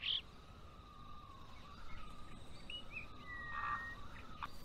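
Faint outdoor nature ambience: a thin steady high hum, with a few brief chirps about three seconds in.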